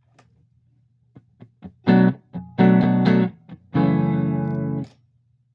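Electric guitar played through a Fender '65 Deluxe Reverb reissue tube amp: a few faint picked ticks, then three loud chords, the last held about a second and cut off short. A steady low amp hum sits underneath.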